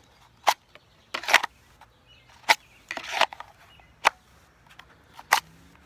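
A Glock pistol being pushed into and pulled out of a hard plastic IWB holster: about half a dozen sharp clicks, some doubled, as the holster's retention snaps over the gun with a positive click.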